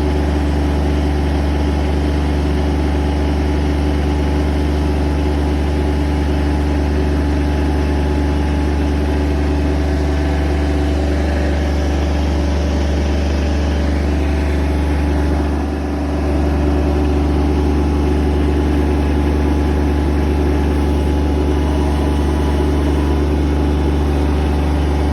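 Engine of a heavy machine with a swinging arm, used for moving logs, running steadily at a low, even pitch. The sound dips briefly about sixteen seconds in.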